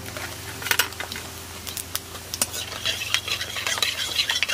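Panch phoron seeds crackling and sizzling in hot mustard oil in a pan, with a metal spoon clicking and scraping against the pan as it stirs them. The sizzle grows thicker about three seconds in.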